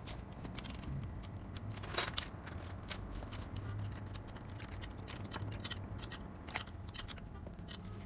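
Small metallic clicks and rattles of a children's bicycle handlebar and its stem being handled and fitted, with one sharper clack about two seconds in, over a steady low hum.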